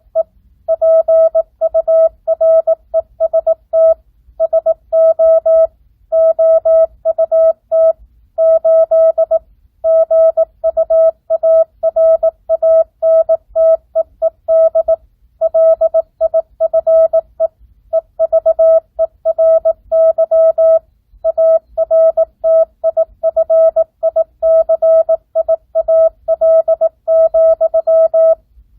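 Morse code sent as a single steady tone keyed on and off, at 18 words per minute with standard (non-Farnsworth) spacing: dots and dashes run together into characters and words, with short pauses between words.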